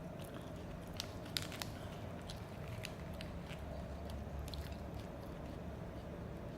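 A person chewing crisp raw salad vegetables such as romaine lettuce and carrot, with scattered sharp crunches, the loudest a little over a second in. A steady low hum runs underneath.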